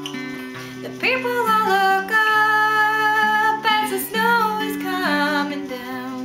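A woman singing over a cutaway acoustic guitar played in a steady pattern of single notes. Her voice comes in about a second in and holds long, sliding notes until about five and a half seconds, while the guitar carries on beneath.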